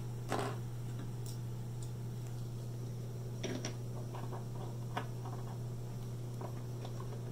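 A few scattered light clicks and taps of plastic Lego pieces being handled on a wooden table, over a steady low hum.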